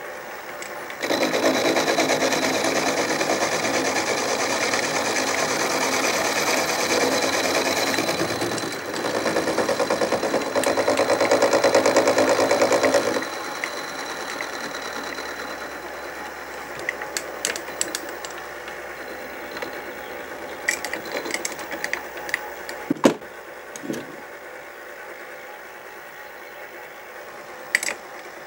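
A Sieg SX2P mini mill's end mill taking a facing cut across a brass bearing half, the spindle running with a steady, dense machining whine and chatter. About 13 seconds in the sound drops to a quieter run, with scattered light ticks and one sharp click.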